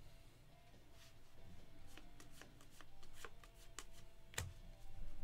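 Football trading cards handled and flipped through one by one, sliding against each other: a run of light, irregular flicks, with one sharper knock about four and a half seconds in.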